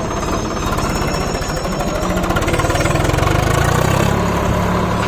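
Tractor diesel engine running with a fast, even knock of firing pulses. It grows louder about three seconds in.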